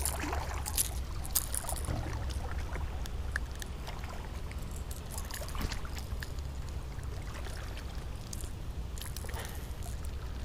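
Small splashes and handling clicks from a small fishing boat on the water, over a steady low rumble.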